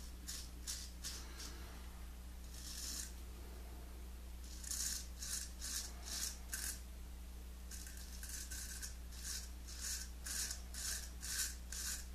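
Gold Monkey 777 straight razor scraping through lathered stubble on the cheek and jaw: short rasping strokes, a few at first, then quick runs of about two or three strokes a second with pauses between.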